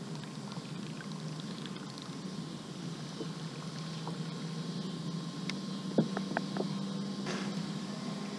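Handling sounds of fishing tackle in a kayak over a steady low hum: a sharp knock about six seconds in, the loudest sound, followed by a few light clicks and a brief hiss as the rod is raised.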